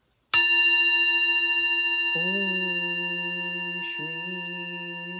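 A bell-like tone struck once, ringing on with a slow fade. From about two seconds in a man's voice chants a long, low, steady note, pausing for a breath near four seconds and then going on.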